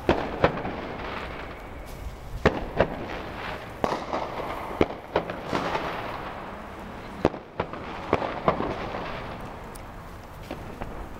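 Firecrackers and fireworks going off: about ten sharp bangs at irregular intervals over a steady background crackle of more distant fireworks.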